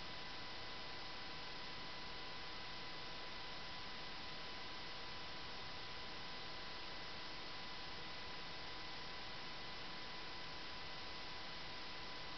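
Steady electrical hiss of recording noise with a faint high-pitched steady whine mixed in, unchanging throughout, with no ticks or other events.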